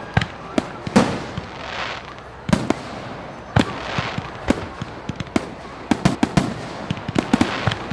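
Fireworks going off: a string of irregular bangs, each with a short fizzing tail, then a quick run of crackling cracks from about six seconds in.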